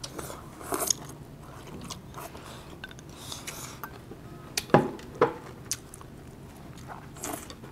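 Eating at the table: chewing, with scattered small clicks and clinks of utensils against dishes. Two louder sharp knocks come close together about five seconds in.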